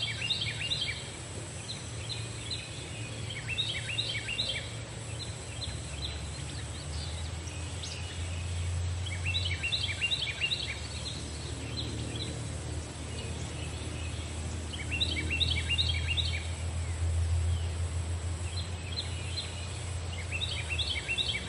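A bird calling in repeated short bursts of rapid, falling chattering notes, a phrase about every three to five seconds, over a steady low rumble.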